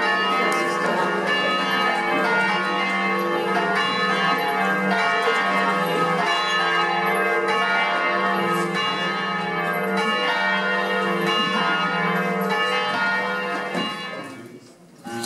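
Church bells pealing, many bells ringing together in a dense, continuous wash of tones, fading out near the end.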